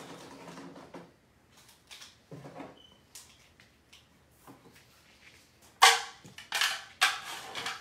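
Three short, sharp rustling or scraping handling noises, a little over half a second apart, near the end; the first starts with a sharp knock and is the loudest.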